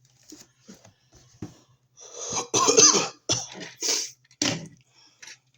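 A person coughing several times in a row, after a few faint small clicks.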